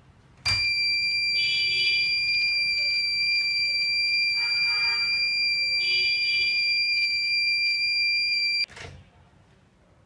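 Homemade door alarm's buzzer going off: one steady high-pitched tone for about eight seconds, starting and stopping abruptly, with a click at each end.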